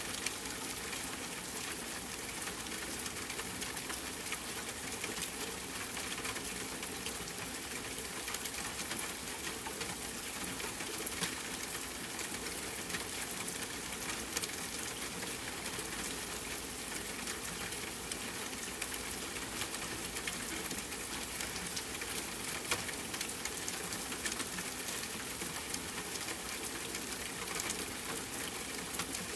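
Steady rain falling, a dense even hiss of many small drops with occasional sharper drop ticks.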